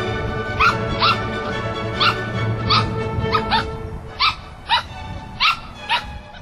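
Poodle puppy giving short, high barks, about ten of them a half-second or so apart, over background music that thins out after about four seconds.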